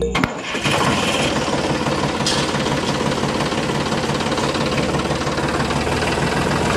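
A small engine running steadily with a rapid knocking rhythm, like a tractor engine idling, as the miniature tractor drives.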